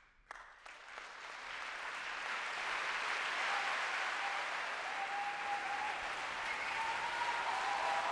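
Theatre audience breaking into applause as the performance ends: a few claps at first, swelling within about two seconds into full, steady applause, with some cheering over it from about halfway.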